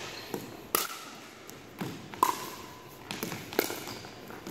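Pickleball rally: paddles striking the hollow plastic ball with sharp, ringing pocks, about once every second or so, with lighter taps in between, echoing in a large gym.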